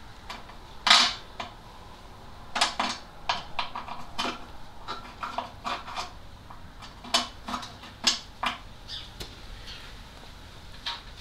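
Irregular sharp metallic clinks and knocks from hand tools and bolts being handled, the loudest about a second in, then clusters of lighter clinks.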